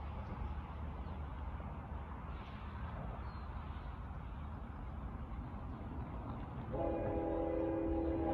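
A multi-chime locomotive air horn sounds one long chord starting a little over two-thirds of the way through, from a train not yet in sight, over a steady low rumble. It is the horn of Union Pacific 7802, a GE AC45CCTE leading a southbound manifest freight, blowing as it approaches the grade crossing.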